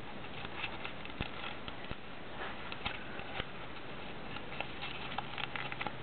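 Origami paper rustling and crackling as it is folded and creased by hand, with small sharp crackles scattered irregularly over a steady hiss.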